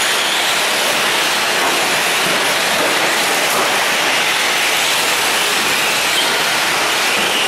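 Several electric radio-controlled short course trucks racing on a dirt track: a steady rush of electric motors and tyres on dirt, with a faint motor whine rising and falling near the start and again near the end.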